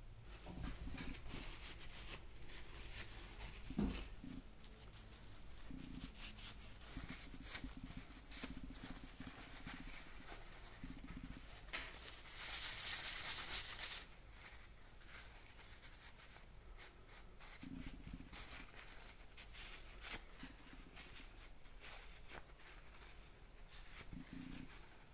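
Faint clicks, knocks and rubbing of small metal bearing-carriage parts being handled and cleaned, with one louder knock about four seconds in. About halfway through comes a hiss of nearly two seconds.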